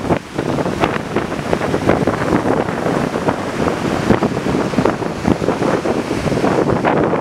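Strong gusty wind buffeting the microphone, with waves of a rough sea breaking on the beach underneath.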